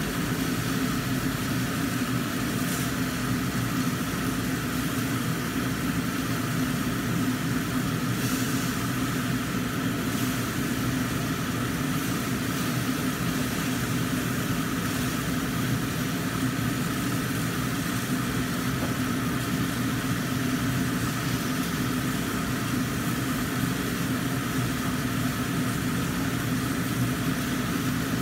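Kitchen range hood exhaust fan running with a steady hum, over mackerel frying in a covered wok.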